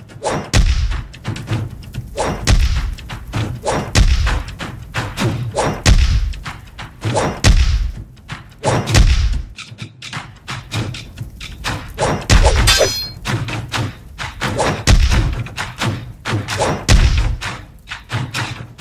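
Cinematic percussion soundtrack: deep drum hits every second or two, with a dense run of sharp strikes between them and a bright crash about two-thirds of the way through.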